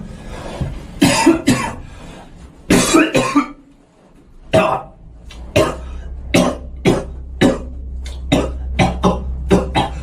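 A person coughing over and over, short sharp coughs that fall into an even beat about halfway through and come faster near the end. A steady low hum joins them about halfway through.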